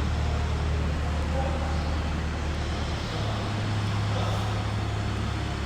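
A steady low engine drone that steps up in pitch about three seconds in.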